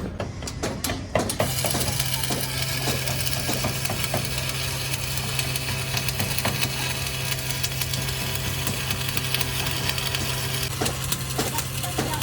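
Electric arc welding on a steel truck rim: a steady crackling sizzle with a low electrical hum, struck about a second in after a few metal knocks.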